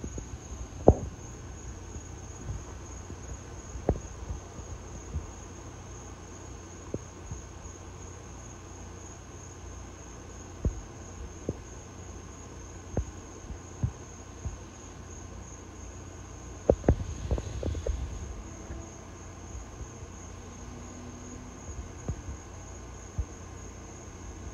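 Crickets chirring in a steady, high, pulsing trill over a low hum. Scattered sharp clicks and knocks cut through, with a cluster of them about 17 seconds in.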